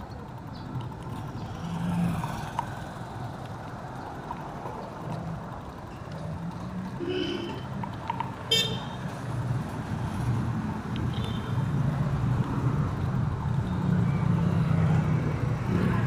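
Street traffic: vehicle engines running steadily, growing louder in the second half, with brief horn toots about halfway through, the sharpest and loudest just past the middle.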